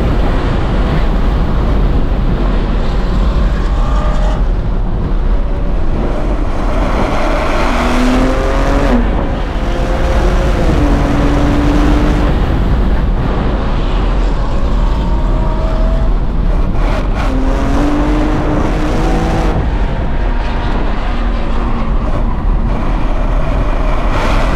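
BMW M2's twin-turbo inline-six running hard under load, heard from inside the cabin at track speed. Its pitch climbs and drops repeatedly with the gear changes and braking, over heavy wind and road noise.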